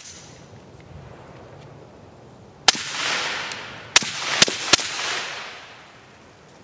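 Suppressed Ruger SFAR rifle firing M118LR rounds: one shot about two and a half seconds in, then three quick shots about a third of a second apart, each followed by a long rolling echo.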